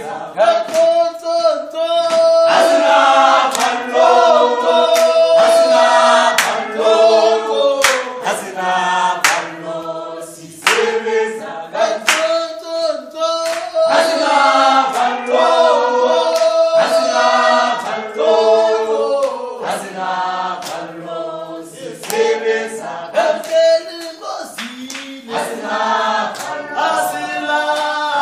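A group of people singing a revolutionary song together in several-part harmony, unaccompanied, with hand claps cutting through.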